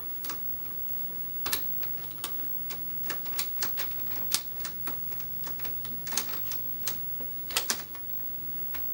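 Plastic screen bezel of an ASUS X555L laptop being pried and worked loose, giving irregular clicks and small snaps as its plastic clips release and the parts rub together. The loudest snaps come about a second and a half in, near the middle, and a double one near the end.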